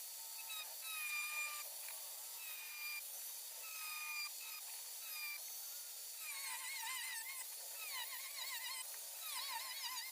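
A tool cutting into a steel motorcycle exhaust canister, squealing at a fairly steady pitch about once every second or so. From about six seconds in the squeals waver up and down in pitch.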